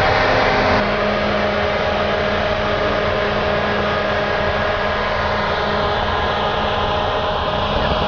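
Fan-type snow-making machine blowing: a steady loud rush of air and spray with a constant motor hum underneath.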